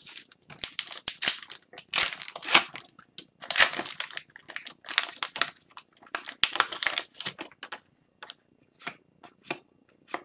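Foil wrapper of an Upper Deck hockey card pack crinkling as it is torn open by hand, in dense runs of rustling. Near the end the rustling stops and only a few faint clicks are left as the cards are handled.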